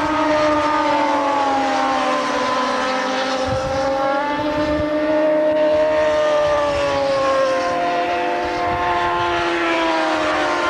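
Several racing motorcycles' engines running hard through a bend, their overlapping tones rising and falling as the bikes go past.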